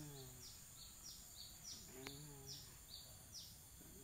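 A small bird calling a quick, steady run of short, high chirps, each falling in pitch, about two or three a second, alternating between a higher and a lower note. A faint voice is heard briefly now and then, and there is a small click about two seconds in.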